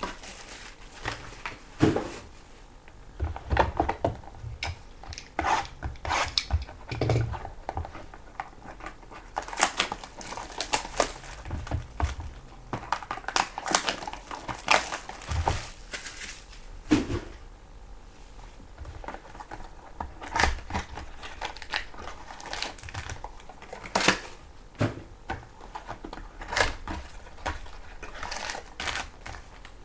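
Trading-card packaging being handled and opened by hand: irregular crinkling and rustling of wrappers with sharp clicks and knocks of cardboard and packs being set down.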